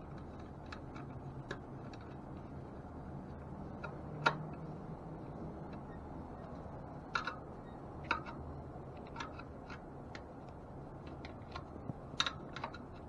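Faint, irregular light clicks and taps of hands working on a bicycle wheel's spokes, nipples and rim, with the sharpest click about four seconds in.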